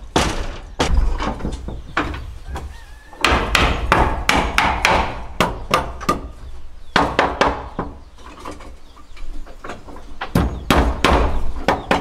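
Hammer blows, in bursts of several quick, irregular strikes separated by short pauses.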